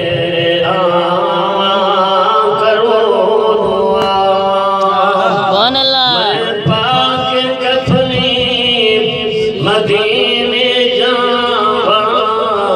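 A man singing a naat through a microphone and PA, unaccompanied, in long drawn-out wavering notes, with a sweeping slide in pitch about halfway through.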